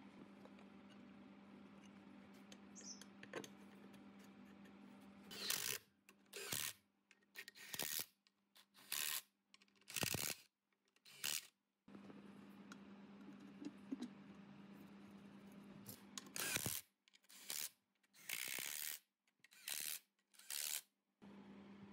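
Cordless power driver running bolts into an air compressor's crankcase side cover through a socket extension, in short bursts: about six in quick succession, a pause, then about five more.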